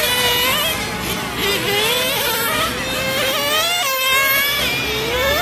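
Several nitro RC cars' small glow-fuel engines buzzing at high revs, the whining pitch rising and falling again and again as the cars throttle up and ease off around the track.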